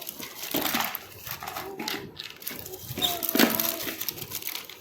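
Small plastic toy parts clicking and rattling as they are handled and fitted together, with a few short murmured voice sounds.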